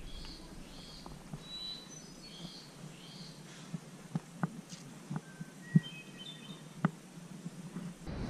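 Woodland birds calling: one bird repeats a short chirp about every two-thirds of a second for the first few seconds, then other brief whistled notes follow. Several sharp clicks come in from about four seconds in.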